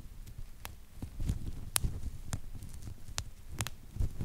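Bubble wrap squeezed and twisted by hand, its bubbles popping one at a time: about six sharp pops at uneven intervals, two in quick succession just past three seconds in, over a low rustling of the plastic sheet.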